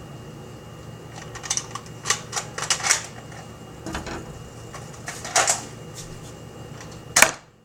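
Series of sharp plastic clicks and clacks from handling a Nerf dart blaster: scattered single clicks, a quick cluster in the first few seconds, and the loudest snap near the end.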